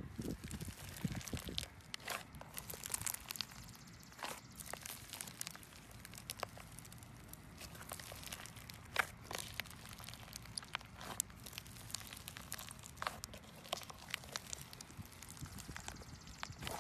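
White slime packed with foam beads and flat red chips being squeezed and kneaded by hand, giving irregular crackles, crunches and small pops.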